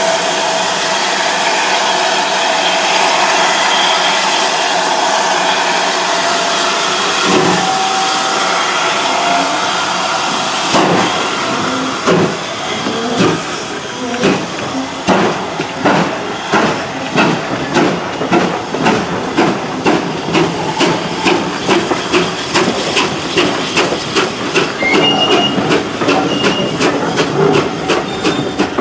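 Steam locomotive hissing steadily with steam, then starting away about eleven seconds in, its exhaust beats coming evenly at about two a second.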